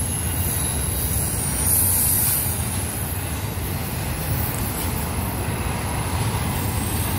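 Double-stack intermodal freight train rolling past, a steady low rumble of wheels on rail, with a brief high hiss about two seconds in.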